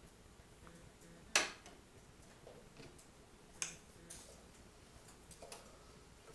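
Light clicks and knocks of kitchen utensils against a stainless steel pot: a sharp clink about a second in as the metal measuring cup is emptied and set down, then softer taps of a wooden spatula stirring rice in the water.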